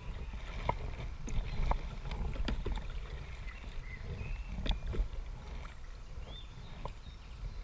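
Kayak paddling: irregular splashes and knocks of the paddle in the water over a steady low rumble.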